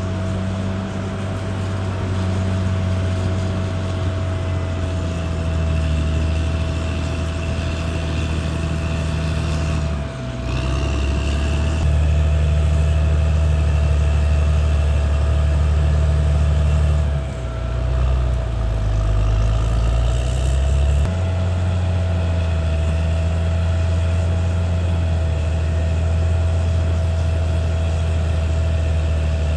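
Caterpillar D6R XL bulldozer's diesel engine running steadily with a constant high whine, its pitch and load shifting briefly about ten seconds in and again between about 17 and 21 seconds.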